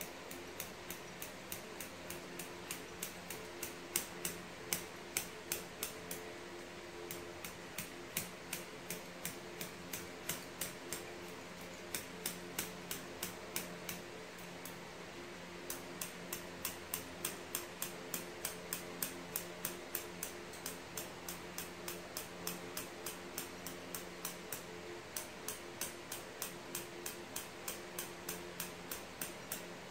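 Regular ticking, about two to three clicks a second, over a low steady hum.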